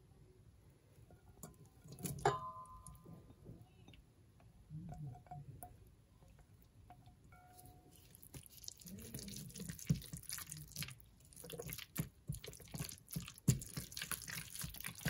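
A ceramic bowl clinks against the rim of a stainless steel mixing bowl about two seconds in, ringing briefly. From about halfway on, a silicone spatula stirs chopped shrimp into mayonnaise and sour cream: wet squelching with quick taps and scrapes against the steel bowl.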